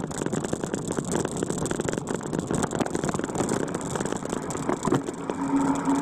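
Vehicle engine running as it drives over a rough, rocky dirt track, with constant bumping and rattling. A low, held tone begins near the end.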